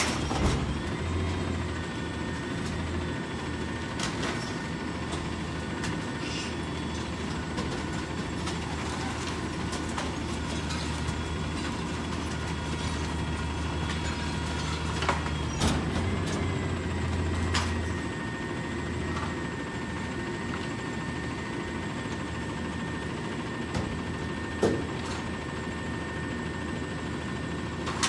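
Rear-loader garbage truck running: a steady low engine drone with a thin high mechanical whine above it, the whine shifting in pitch about a second in and again around 16 seconds, and the low drone easing off about 18 seconds in. Scattered clicks and knocks.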